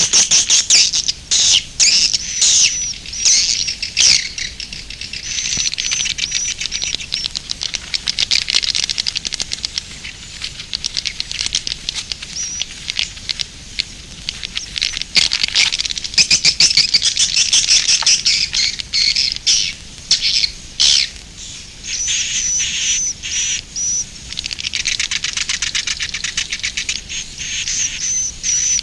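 Edible-nest swiftlets calling: a dense, continuous chorus of high chirps and twitters mixed with rapid clicking, the swiftlet roosting call ('suara inap').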